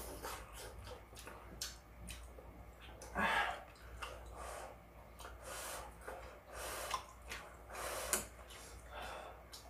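A person eating, with short irregular mouth noises: chewing, slurping and breaths.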